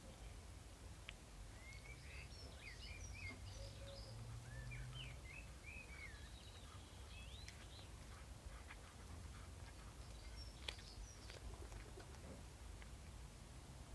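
Faint bird chirps, a quick run of short wavering calls a couple of seconds in and a few more near the end, over a low steady background rumble.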